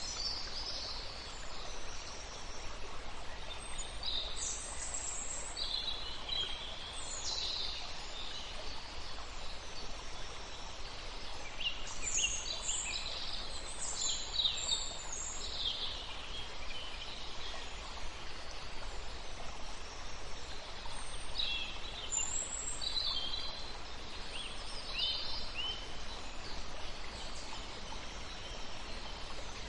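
Birds calling and chirping at intervals over a steady background hiss, a nature-sounds recording.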